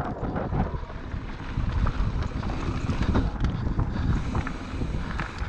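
Wind buffeting an action camera's microphone on a mountain bike descending dirt singletrack, with tyres rolling over the trail and scattered short knocks and rattles from the bike.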